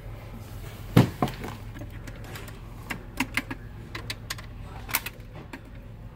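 Plastic-and-metal clicks from the controls of a vintage Zenith console stereo's record changer (speed selector and off/on/auto lever) being worked by hand. There is a loud click about a second in, then a run of lighter clicks, over a steady low hum.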